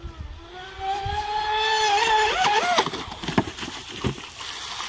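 Electric RC speedboat's TP Power 4070 brushless motor and propeller whining at speed, the pitch rising about a second in, then swinging up and down sharply as the throttle is worked. Two sharp knocks from the hull slapping the water come in the second half.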